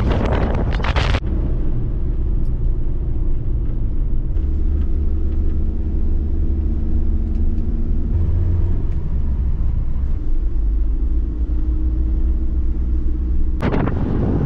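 Camper van driving, heard from inside the cab: a steady low engine and road rumble, its pitch shifting about four and eight seconds in. Wind buffets the microphone in the first second and again near the end.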